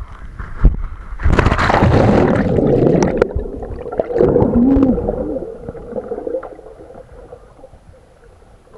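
A rider on a water slide, with a couple of knocks as the body bumps down the flume, then a loud splash about a second in as they plunge into the pool. After it comes muffled underwater rushing and bubbling, heard through the submerged camera, which fades away.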